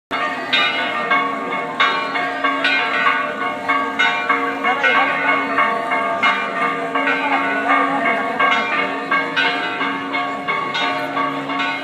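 Church bells pealing, struck in quick succession, a few strokes a second, each stroke ringing on over the next.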